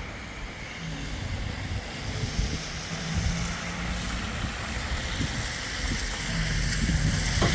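Steady rushing wind noise with a vehicle's engine humming underneath.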